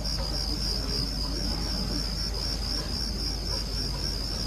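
Crickets chirping steadily in a high, evenly pulsing trill of about four chirps a second, over a low steady hum.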